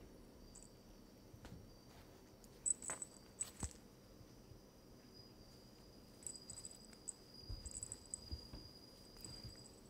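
Faint insect chirping in short high trills, with a couple of soft knocks about three seconds in.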